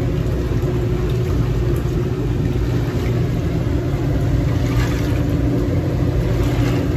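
Jetted whirlpool bathtub's pump motor running with a steady hum, its jets churning and bubbling the water.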